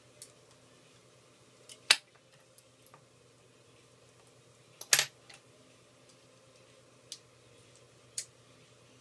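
Sharp clicks and taps of small tools and iPhone 4 parts being handled during a repair, two louder ones about two and five seconds in and a few fainter ones between, over a faint steady hum.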